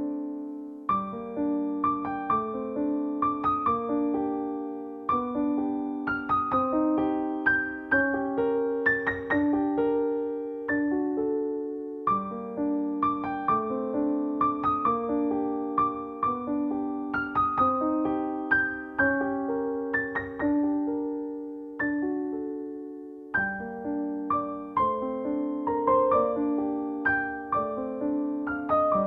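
Background music: a gentle solo piano melody of struck notes that ring and fade, over sustained lower notes.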